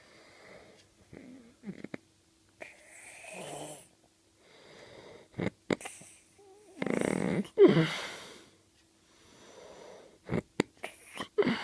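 A man snoring in his sleep: a series of rasping, wheezy breaths about every one to two seconds, the loudest snore about seven seconds in, with a few short clicks between breaths.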